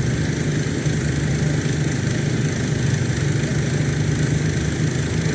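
A steady, unbroken low engine or motor hum.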